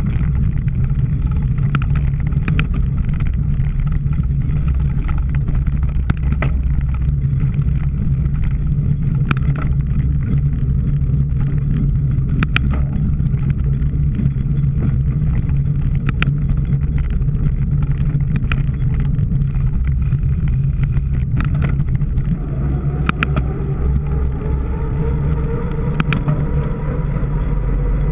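Steady low rumble of wind on the microphone of a cyclocross bike ridden at race pace, broken by scattered sharp clicks and rattles from the bike over rough ground. Over the last few seconds a higher pitched tone rises in and grows.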